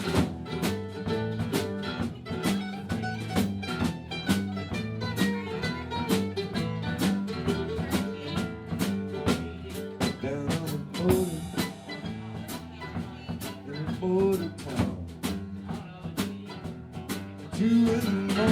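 Live band playing an instrumental break in a blues-tinged song: a steady drum-kit beat under bass and lead instrument lines with bending notes.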